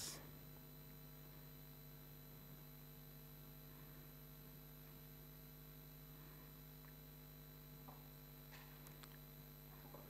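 Near silence in a hall: a steady electrical mains hum, with a couple of faint ticks near the end.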